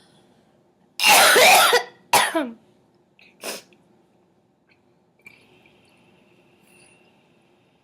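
A girl coughing: two loud coughs about a second in, the second trailing off downward in pitch, then a short, softer cough about three and a half seconds in.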